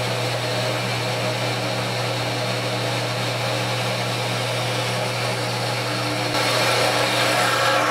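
Grizzly G9742 metal-cutting bandsaw running with its blade cutting through steel angle iron under hydraulic down feed: a steady motor hum with the blade rasping through the metal. The cutting gets somewhat louder and brighter about six seconds in.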